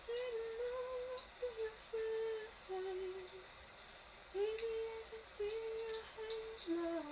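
A woman humming a slow melody without words: a run of held notes that step up and down in pitch, broken by short pauses.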